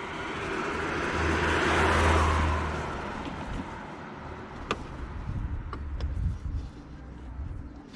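A car passing by, its noise swelling to a peak about two seconds in and then fading away. A few sharp clicks follow in the second half.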